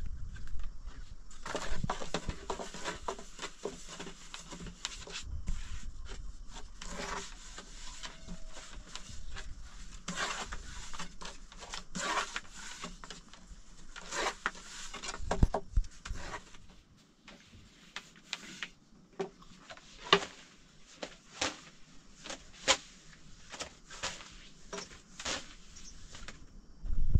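Irregular taps, knocks and rubbing or rustling of hands working with objects, busy at first and thinning to scattered separate clicks and knocks in the second half.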